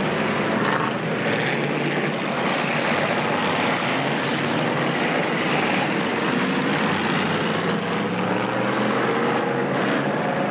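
A field of pure stock race cars' engines running together on a dirt oval, with pitch rising and falling as the cars come around.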